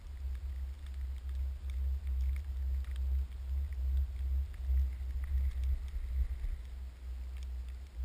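Low, gusting rumble of wind buffeting a GoPro's microphone, with faint scattered ticks of falling snow hitting the camera.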